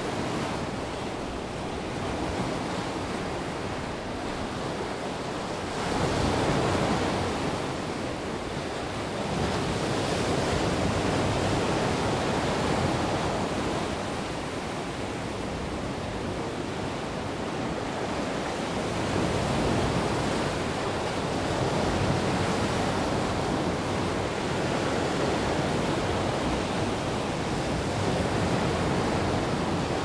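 Sea waves breaking and washing over a shore of rounded cobbles and pebbles. The surf comes as a continuous rush that swells and eases every few seconds as each set of waves comes in.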